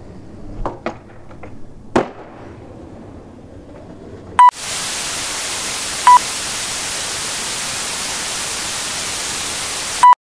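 A few sharp clacks of a skateboard popping and landing on concrete, the loudest about two seconds in. Then a loud short beep starts a steady hiss of television static, broken by a second beep, and a third beep as it cuts off suddenly.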